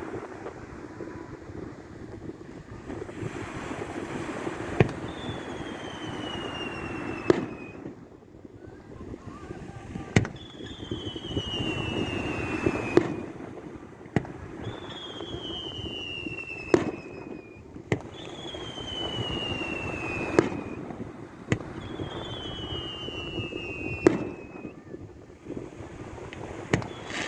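Fireworks display: about nine sharp shell bursts spread every few seconds, most of them preceded by a thin whistle that falls in pitch over two to three seconds as a whistling shell goes up.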